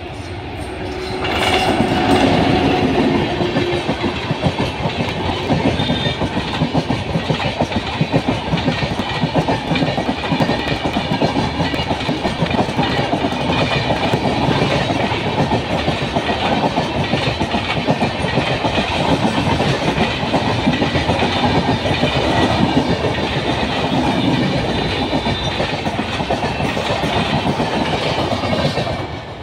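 Indian Railways express train, an electric locomotive and a long rake of passenger coaches, passing close by at speed with a steady rumble and clatter of wheels on the track. It comes in suddenly about a second and a half in as the locomotive reaches the spot, stays loud while the coaches run past, and drops away just before the end.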